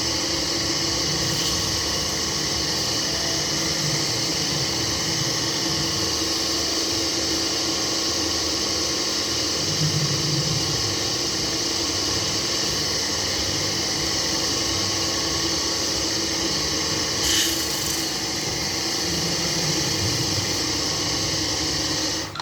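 Wood lathe running steadily, its motor hum carrying a hiss of a turning tool cutting the spinning wood, with one short louder scrape about three quarters of the way through.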